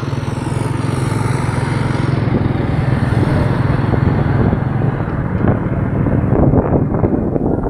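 Small motorcycle engine running steadily while riding, with road and wind noise. Over the last couple of seconds the hum gives way to gusty wind noise on the microphone.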